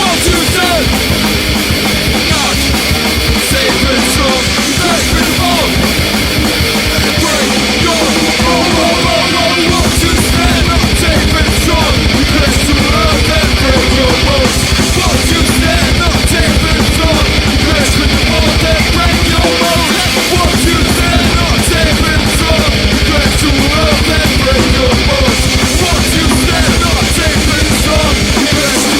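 Hardcore punk music played loud and without a break by a band: distorted guitars and drums. The bass end thickens about a third of the way in, drops out briefly about two-thirds through, and comes back.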